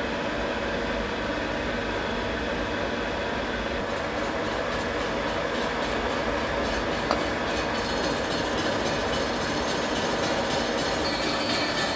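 1950s SIP Hydroptic No. 6 jig borer running, its spindle turning a face mill at 210 RPM while the power table feed carries the workpiece toward the cutter; a steady mechanical whir. Near the end a higher-pitched note joins in as the cutter starts a 0.1 mm skim cut across the steel plate.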